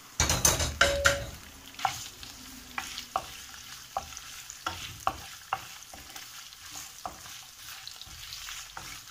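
Chicken gizzards frying in olive oil with onions and garlic in a non-stick frying pan, sizzling throughout, louder in the first second as they settle into the hot oil. A wooden spoon stirs them, tapping against the pan about once or twice a second.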